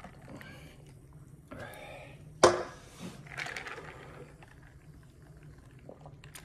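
A drink poured from a can into a glass of ice, with one sharp knock about two and a half seconds in, then sips from the glass. A low steady hum runs underneath.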